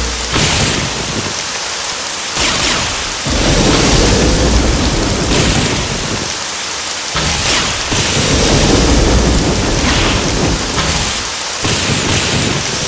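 Heavy rain with rumbling thunder. The same stretch of storm sound repeats about every four and a half seconds, like a loop.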